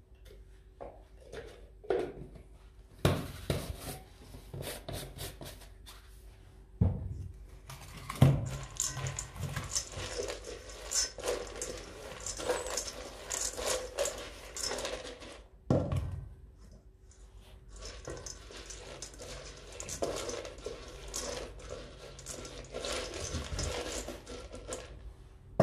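Dry dog kibble rattling and scraping in stainless steel bowls as a hand stirs it, a dense run of small clicks. There are several louder knocks, a few seconds apart, as the metal bowls are moved about and set down on the tiled floor.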